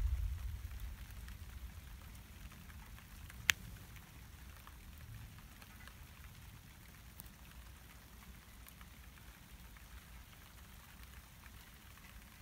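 Steady rain falling during a thunderstorm, with scattered drops ticking. A low rumble of thunder dies away over the first couple of seconds, and one sharp click comes about three and a half seconds in.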